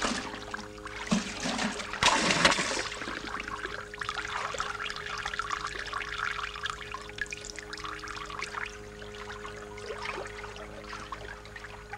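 Water gushing in a washing machine about two seconds in, then trickling and dribbling on, over a steady low hum.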